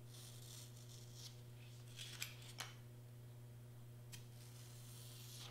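Foam board being cut by hand, faintly: a few short, crisp cutting strokes, three close together about two seconds in and one more about four seconds in.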